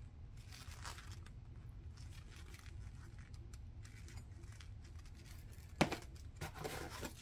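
Faint handling noise from gloved hands turning a small chrome socket, over a low steady hum. About six seconds in comes a single sharp knock as the socket is set down in the cardboard box, followed by light rustling.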